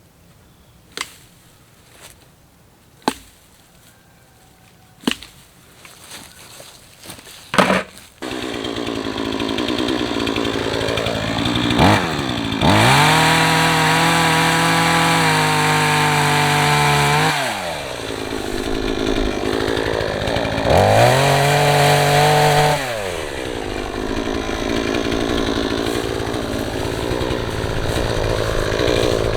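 A few sharp knocks, then a chainsaw starts about eight seconds in and idles, revving up to full speed twice for several seconds each time before dropping back to idle.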